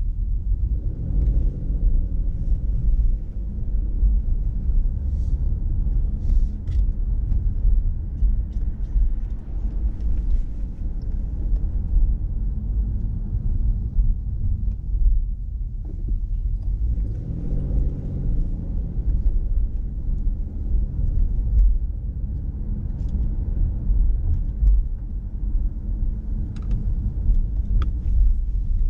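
Car driving along a city street: a steady low rumble of engine and road noise, with the engine note rising about a second in and again about 17 seconds in as the car picks up speed.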